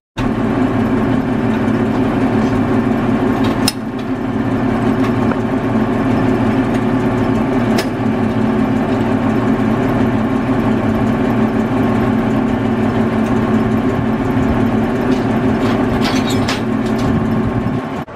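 Standing railway locomotives running steadily with an even hum while the Abt rack locomotive is uncoupled, with a few sharp clicks about four seconds in, about eight seconds in, and a cluster around sixteen seconds in.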